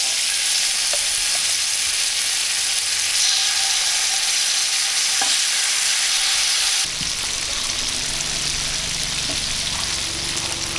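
Sauce-glazed chicken wings sizzling steadily on the hot grate of a Cadac Carri Chef 2 gas grill, with a few light clicks of metal tongs as the wings are laid down. The sizzle turns a little quieter about seven seconds in.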